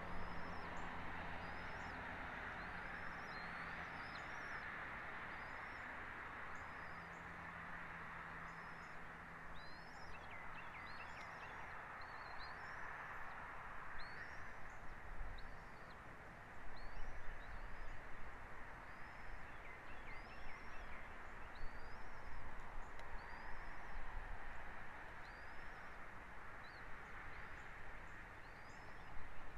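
A bird giving short, high chirps over and over, about one a second and sometimes in quick pairs, over a steady outdoor hiss.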